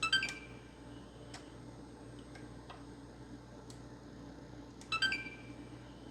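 Xbox One S console pressed on twice, about five seconds apart: each time a click from the power button and a short beep from the console, the start-up beep of a console that will not stay on.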